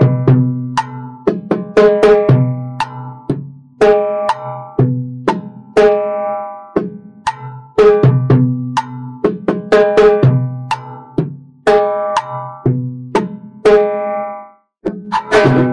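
Steel-shell Meinl timbales played with sticks in a repeating two-bar clave-based pattern. Sharp clicks on a mounted plastic jam block alternate with strokes on the two drumheads, which ring after each hit.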